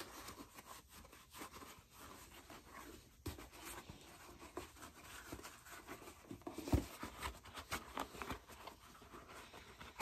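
Faint rubbing and handling noises from a leather cowboy boot as Bick 4 conditioner is worked into its opened footbed and lining, with scattered small taps and one heavier thump about two-thirds of the way through.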